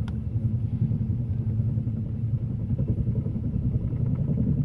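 Helicopter hovering overhead, its rotor and engine giving a steady low rumble with a rapid flutter.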